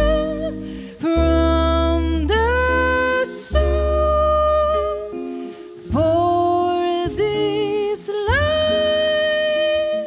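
Small jazz combo playing a slow ballad: double bass, drums with cymbals, and guitars, under a lead line of long held notes that slide up into pitch and waver with vibrato.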